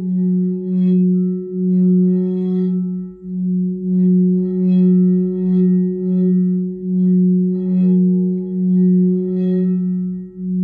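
High heart crystal singing bowl sustaining one low, steady tone with a fainter overtone above it, the sound swelling and ebbing in regular pulses about once a second.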